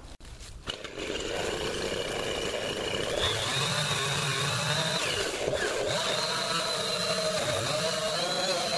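Husqvarna 345 two-stroke chainsaw cutting a notch into a tree trunk. It picks up about a second in and runs at high speed under load, and its pitch sags and recovers as the chain bites into the wood.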